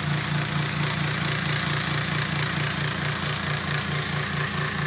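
Benchtop woodworking machine running steadily, its motor giving a strong, slightly pulsing hum under a steady hiss as a flat blank is pushed across it.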